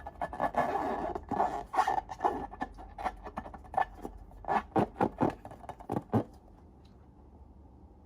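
Slime being handled and squished, giving an uneven run of sticky clicks and crackles that stops about six seconds in.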